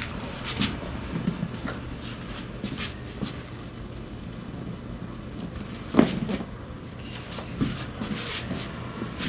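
Rustling and small knocks of a person being moved and positioned during a chiropractic adjustment, with one sharp crack about six seconds in, the loudest sound, and a few lighter clicks around it.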